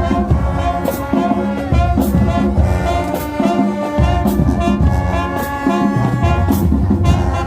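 High school marching band playing: the brass section holds loud chords over drums, with a sharp hit about once a second.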